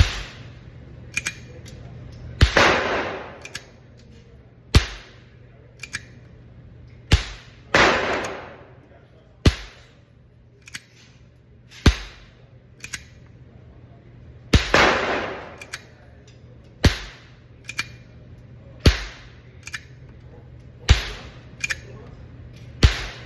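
A string of .22 Colibrí rounds fired from a .22 pistol: sharp, small pops roughly every one to two seconds, several of them trailed by a longer, louder fading report. The Colibrí is driven by its primer alone, with no powder, so each shot is far quieter than a .22 LR and is too weak to cycle the slide.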